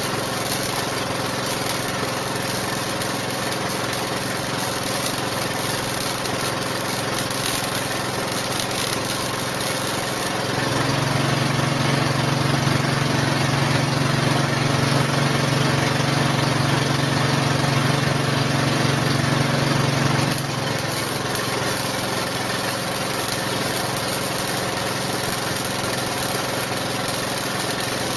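Arc welding on a steel frame: a steady crackling arc over the even running hum of a machine. About a third of the way in, a louder, deeper hum starts, holds for around ten seconds and then cuts off.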